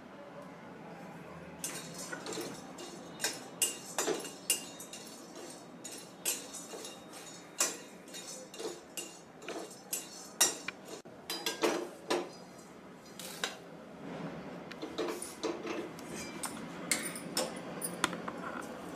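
A spatula stirring whole cloves in a stainless-steel kadhai, dry-roasting them. It makes irregular scraping and clicking against the metal pan, with the cloves rattling.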